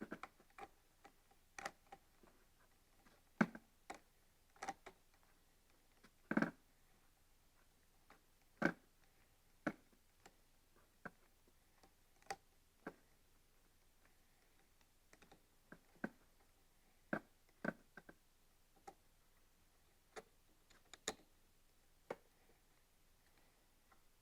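Scattered light clicks and taps, irregular and a second or so apart, from a screwdriver and small metal hardware being handled as a small screw is taken out.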